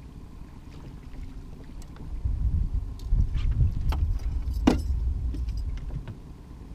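Low wind rumble on the microphone, with a few sharp knocks and clatter from a kokanee being netted and brought aboard an aluminum fishing boat. The loudest knock comes about four and a half seconds in.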